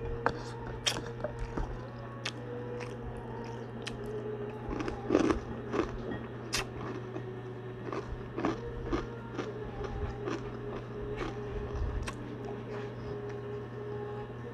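Person biting and chewing crispy chicharon (fried pork rinds) close to the microphone: irregular sharp crunches, a cluster of louder ones about five seconds in.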